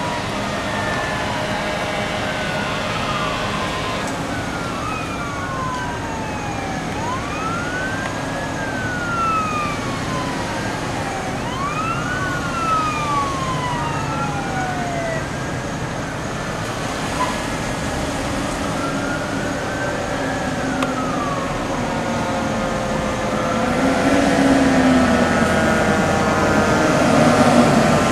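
Emergency vehicle sirens wailing, several at once, their rising and falling sweeps overlapping. In the last few seconds the wails give way to steady tones, and the sound grows louder as the vehicles draw near.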